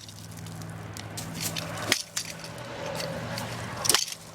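A broken fishing rod swung like a golf club and striking something: sharp clicking knocks, the two loudest about two seconds in and near the end, over a steady low hum.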